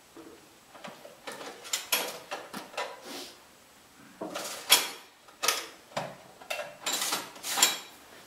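A run of sharp clicks and clatters of hard objects being handled, a dozen or so in irregular bunches over several seconds. The loudest comes about halfway through.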